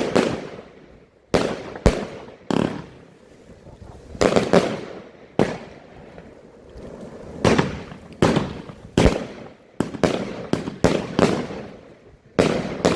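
A 25 mm fireworks cake (Alpha Fireworks The Vault, 144 shots) firing: a string of sharp bangs at irregular intervals, each trailing off in a short echo, with a brief lull early on before the shots resume.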